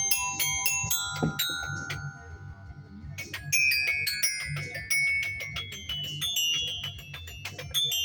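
Mallet percussion music: quick runs of high, ringing struck notes over a steady, pulsing low beat, with a brief pause in the runs about two seconds in before they pick up again.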